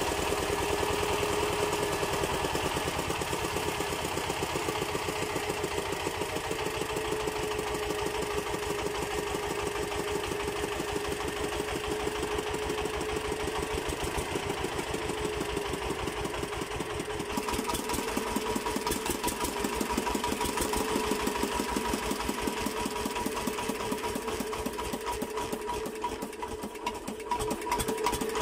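Small generator's engine running steadily with a fast, even firing beat and a steady hum. About two-thirds of the way through the sound changes and a higher steady whine joins it.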